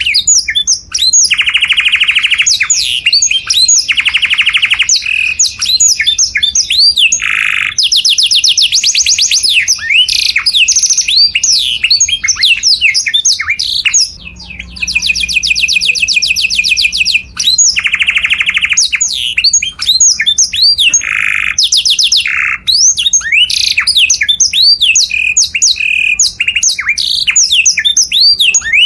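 Domestic canary singing a loud, continuous song of long, fast trills held on one pitch, alternating with quick rising and falling whistled notes and chirps, with a brief pause about halfway through.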